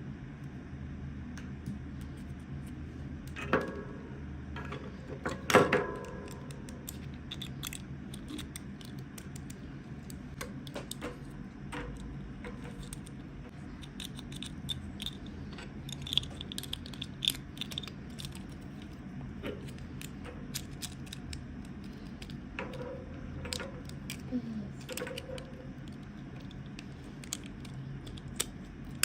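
Light clicks, taps and small rattles of plastic toy packaging and miniature toys being handled and opened, with two louder knocks about three and a half and five and a half seconds in.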